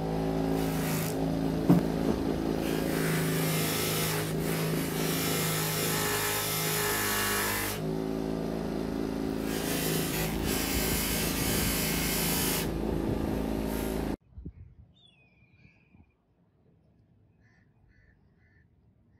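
Bench grinder motor running with a buffing wheel while a steel straight razor blade is polished against it, a hiss coming and going as the blade is pressed on and eased off the wheel. The sound cuts off suddenly about fourteen seconds in, leaving only faint small sounds.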